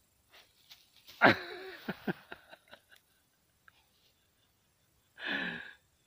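A Russian spaniel with its nose in the grass blows out sharply through its nose about a second in, followed by a few soft sniffing clicks, then another short breathy blow near the end.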